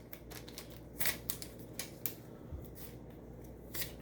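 Trading cards being handled and flipped through: a handful of short, crisp clicks and snaps of card stock at uneven intervals.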